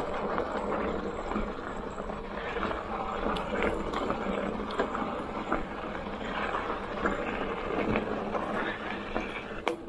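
Electric mountain bike rolling over a rocky dirt and gravel trail: a steady crunch of knobby tyres on dirt and stones, with scattered small clicks and knocks of the bike jolting over rocks.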